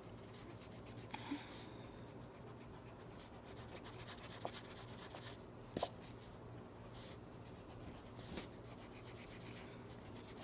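Faint rubbing of a pencil's rubber eraser back and forth on drawing paper, erasing pencil guidelines. Two light ticks about six and eight seconds in.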